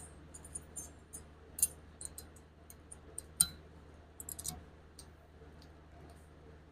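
Light metal clicks and ticks at irregular intervals, a few sharper than the rest, as steel brake pad clips are handled and pressed onto a caliper bracket, over a low steady hum.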